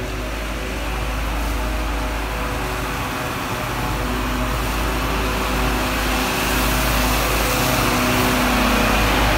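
Street-washing truck's engine running as it comes closer, growing gradually louder. From about halfway through, the hiss of the water jet from its front nozzle spraying the paving grows stronger.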